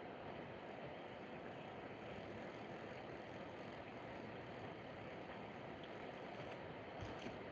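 Steady outdoor background noise: an even hiss, with a thin high-pitched hiss joining about half a second in and dropping away near the end.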